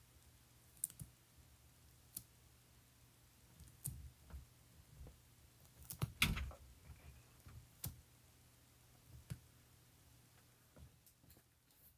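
Baby sulcata tortoises biting and tearing curly kale: scattered crisp clicks and crunches a second or two apart, with a louder cluster about six seconds in.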